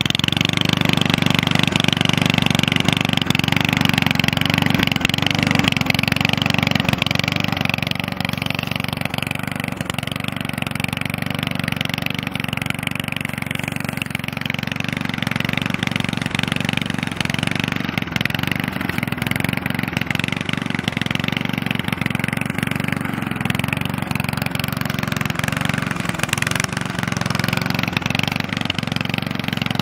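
Walk-behind rotary lawn mower's small gasoline engine catching right at the start after being pull-started, then running steadily as the mower cuts dry scrub and sand.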